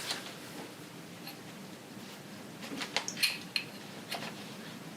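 A few light metallic clicks and clinks of small hand tools being handled, clustered about three seconds in and once more about a second later.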